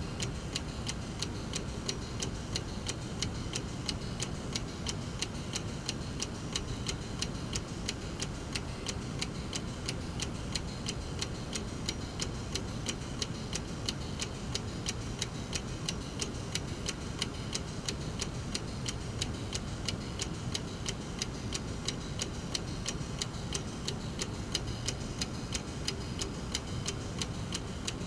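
Brass mechanical clock movement ticking, with quick, evenly spaced ticks from its escapement that keep the same steady beat throughout.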